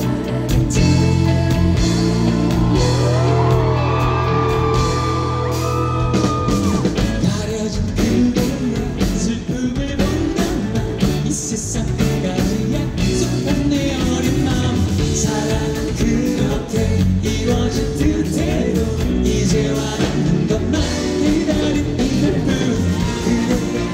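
Live rock band playing loudly through a PA system. Held low chords open the passage, with a sliding lead line about three seconds in. From about seven seconds the band moves into a busier rhythmic stretch between sung lines.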